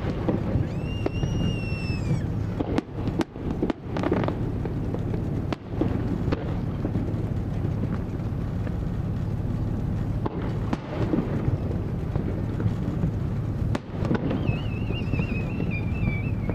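Fireworks display: a continuous low rumble of shell bursts and crackle. A whistling shell rises and then falls in pitch about a second in, and a warbling whistle glides downward near the end.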